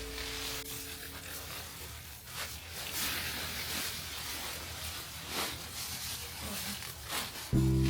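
Irregular rustling and scraping noises, with several short brushing strokes, in a break in the background music; the music comes back near the end.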